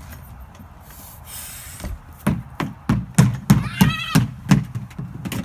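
Plastic toy chest lid being banged down over and over: a run of hollow knocks, about three a second, starting about two seconds in. Near the middle of the run comes a short rising squeal.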